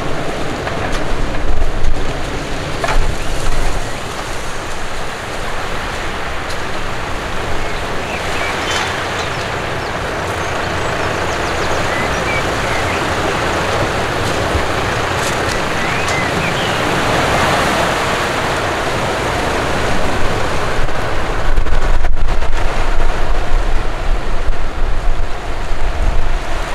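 Wind buffeting the microphone over the steady rush of waves breaking on the shore. The gusts are heaviest in the first few seconds and again over the last several seconds.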